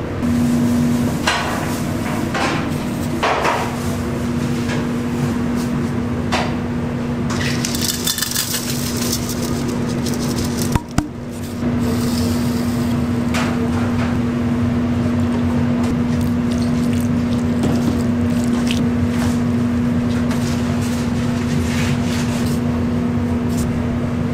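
Kitchen work sounds: metal utensils and pans clinking and knocking over a steady hum, with about two seconds of hissing around eight seconds in.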